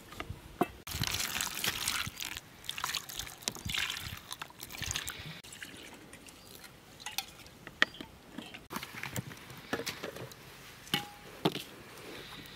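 Liquid trickling and dripping, irregular for the first few seconds, then scattered sharp clicks and knocks.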